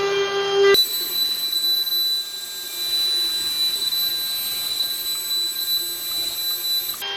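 Router motor running with a steady high-pitched whine as it routes the shallow recess for a door latch's strike plate; the whine changes character abruptly less than a second in.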